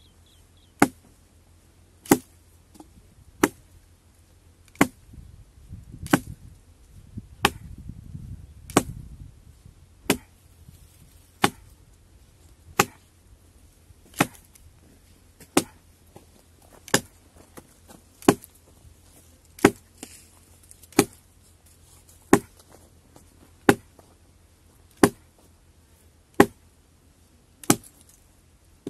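Axe chopping into a felled tree trunk: a sharp knock with each stroke, about one every second and a half, in a steady even rhythm.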